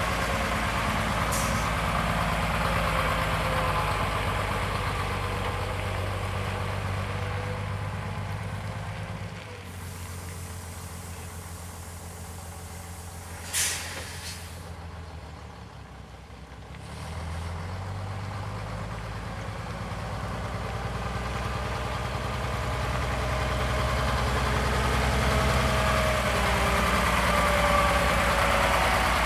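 Scania 86 tipper truck's diesel engine running as the truck pulls away, fading with distance, with one short sharp hiss of air brakes about halfway through. The engine then grows steadily louder as the truck comes back toward and past the listener.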